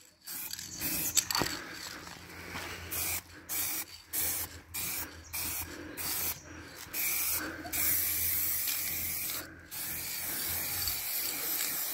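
Aerosol spray-paint can hissing in repeated short bursts, then in longer sprays during the second half.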